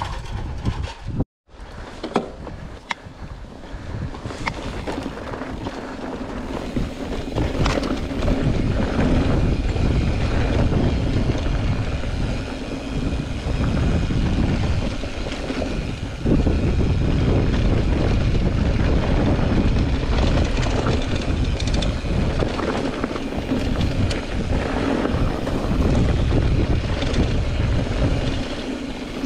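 Mountain bike riding on a trail: wind buffeting the microphone over the rumble of tyres rolling on rough ground, with scattered clicks and rattles from the bike. After a brief dropout about a second in, it grows louder over the next several seconds and then holds steady.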